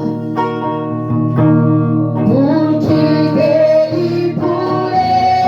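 Live Christian worship music: a singer holds long, sliding notes over steady instrumental accompaniment.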